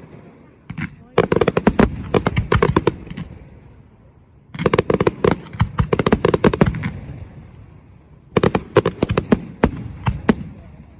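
Fireworks going off in three rapid volleys of sharp crackling bangs, each lasting about two seconds, with short lulls between them.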